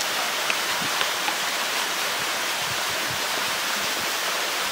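Steady rushing of a rocky mountain stream, with a few faint clicks about half a second to a second and a half in.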